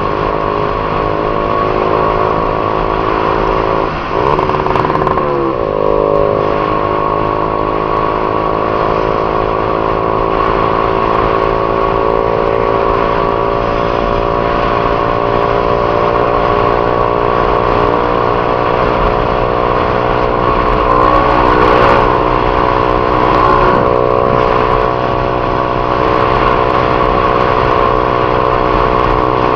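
Honda CG 150 Titan's single-cylinder four-stroke engine running steadily under way, heard from the bike. About four seconds in the engine note dips briefly and shifts pitch, then settles back to a steady drone.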